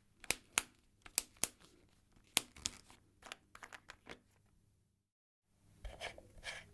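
A quick series of sharp clicks and small plastic taps from handling an electronic cigarette, then a short silence followed by faint scratchy rubbing.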